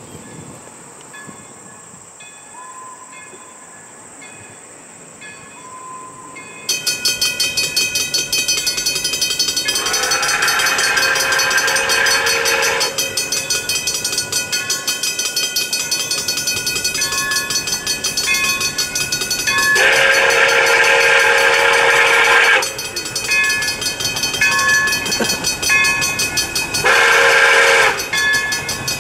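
Pere Marquette 1225, a 2-8-4 Berkshire steam locomotive, working hard as it approaches, its exhaust suddenly loud about seven seconds in after a quiet stretch with a faint steady high buzz. Its steam whistle blows two long blasts and then a short one, the start of the long-long-short-long grade-crossing signal.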